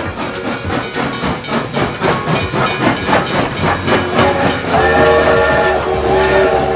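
Toy steam-train sound effect: a rhythmic chuffing, then a steam whistle sounding twice from about five seconds in.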